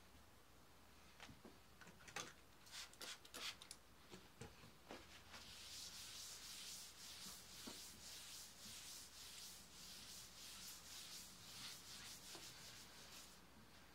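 Paper towel rubbing back and forth across a wood-grain tabletop, a soft hiss in repeated strokes, wiping away a cleaner-sprayed smudge. Before the wiping settles in, a run of faint clicks and taps.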